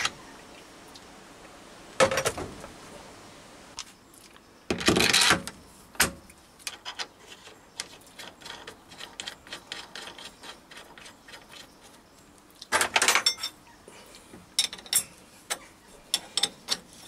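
Steel lathe tooling being handled and refitted on a lathe's tool post: irregular metal clunks and scrapes, the longest about five seconds in, then a run of sharp clicks near the end as the quick-change tool post's clamping lever is worked.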